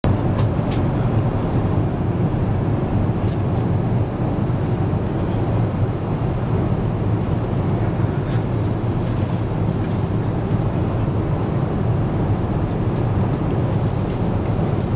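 Steady low drone of a jet airliner's cabin, the engine and air noise heard from a passenger seat, with a few faint clicks.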